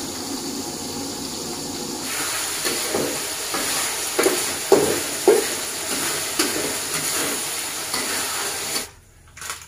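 Tap water running into a metal sink for about two seconds, then eggplant sizzling in hot oil in a wok as it is stirred, with a few knocks and scrapes of the utensil against the wok. The sizzling drops away near the end.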